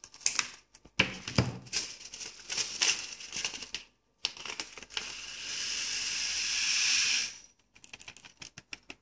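Scissors snipping through a foil seed packet and the packet crinkling, then, after a short break about four seconds in, small coated cauliflower seeds pouring from the packet into a glass Petri dish as a steady hiss for about three seconds, ending in a few light clicks.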